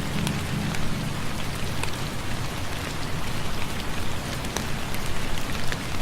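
Steady rain falling, an even hiss with scattered distinct drops ticking through it.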